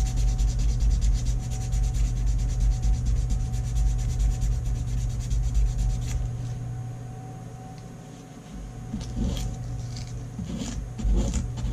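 Hand sanding an epoxy-filled chip in a revolver grip panel with fine 220-grit sandpaper: rapid back-and-forth rubbing strokes that stop about six seconds in. A few light clicks and taps of the grip pieces being handled follow.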